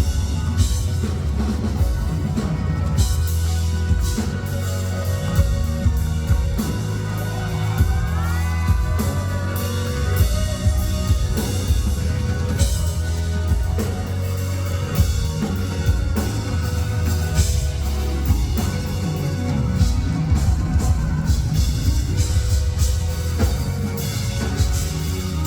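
A live band playing pop-rock at a concert: a full drum kit with kick and snare drives a steady beat under a heavy bass line.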